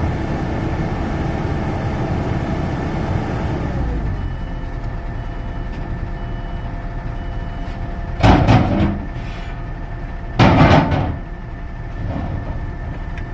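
Heavy diesel engine running hard, then its note drops about four seconds in and settles to a lower, steady run. Two loud bangs of heavy equipment follow, with a smaller knock near the end.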